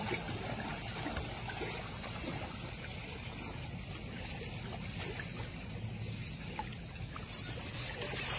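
Steady water noise of a swimming pool: water gently lapping and trickling, with a low rumble underneath.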